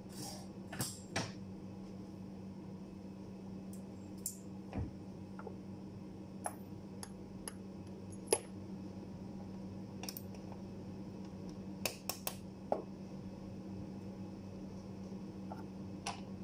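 Scattered sharp clicks and light metal taps from steel parts and hand tools being set and adjusted on a hand-operated die-blade bending machine, over a steady low hum.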